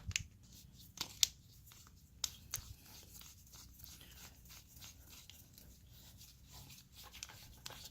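Pressure washer hose fittings being handled and twisted together. A few sharp clicks and knocks come in the first few seconds, then faint ticking and rubbing as the M22 coupling is screwed on.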